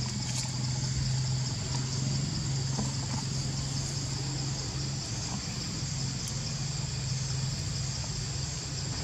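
Steady high-pitched insect chorus, typical of cicadas in tropical forest, running without a break over a steady low hum, with a few faint ticks and rustles.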